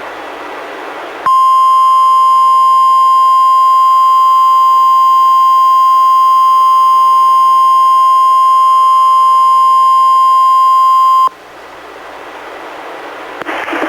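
NOAA Weather Radio warning alarm tone, the 1050 Hz attention signal, sent out as a required weekly test and heard through a weather radio: a single steady high tone for about ten seconds, starting about a second in and cutting off abruptly. A radio hiss comes before and after it.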